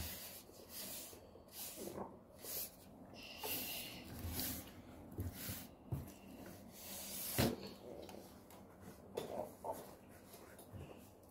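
Glitter slime being squeezed and pulled apart by hand: faint squelches and rustles with a few small knocks on the tabletop, and one sharper click about seven seconds in.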